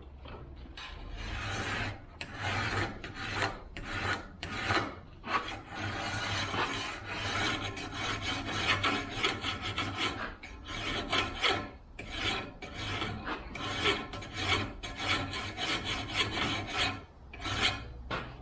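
A flat chainsaw file rasping in repeated back-and-forth strokes, about one to two a second, along the rails of a 24-inch Oregon chainsaw bar held in a vise. The bar is being dressed flat to file off the wire edge (burr) that has built up on the rails.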